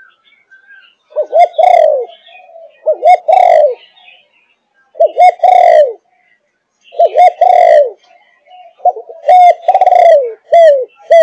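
Spotted dove of the Malaysian 'thúc gù' cooing line, about five and a half months old, cooing in a repeated phrase about every two seconds. Each phrase is two or three short notes and then a longer note that falls in pitch. There are five full phrases, and another begins right at the end.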